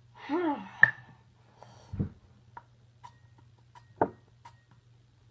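Handling clicks and knocks from a glass and a small plastic spray-candy bottle: a sharp click just under a second in, a dull knock at about two seconds, a louder knock at about four seconds, and faint ticks in between. A short voice sound comes at the very start.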